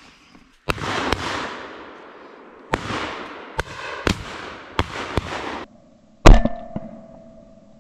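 Shotguns firing at flying ducks: a quick run of about eight shots, some fainter and further off, others close and loud, the loudest and nearest about six seconds in.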